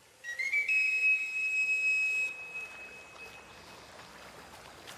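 A single high whistled tone that climbs in two quick steps and is then held for about two seconds before fading, over faint steady noise.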